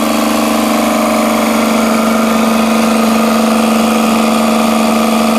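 Shipping-container reefer's hermetic three-phase refrigeration compressor running steadily on its first test run, disconnected from the refrigeration system. It makes an even hum with a strong low tone and a hiss over it, running smoothly.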